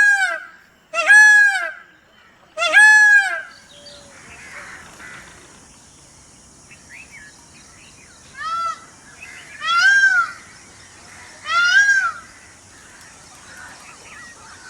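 Peacock calling: loud, honking calls, each rising and then falling in pitch, three in quick succession, then after a pause of about five seconds three more, the first of these fainter. A steady high hiss runs under the second half.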